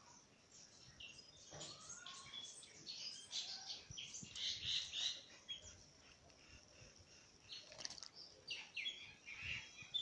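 Oriental magpie-robin bathing in a shallow metal birdbath: quick flutters of its wings splashing the water, mixed with short bird chirps. The busiest flurry comes about four to five seconds in, with another shortly before the end.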